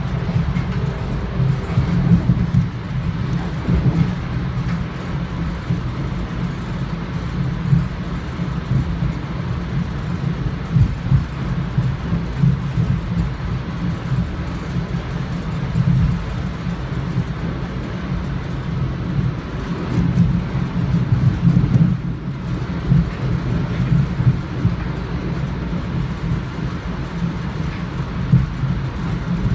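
Interior of an NJ Transit commuter rail coach running along the track: a steady low rumble of the wheels and running gear, with small irregular jolts.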